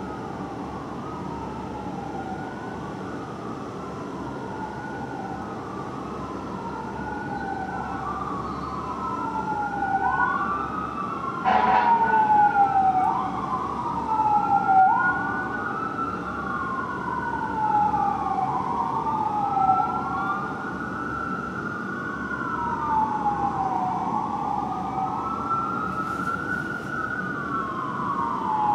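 Fire engine's Whelen electronic siren on a rising-and-falling wail, each sweep lasting a couple of seconds and overlapping the next. It grows louder toward the middle as the truck passes, with a short sharp blast about halfway through.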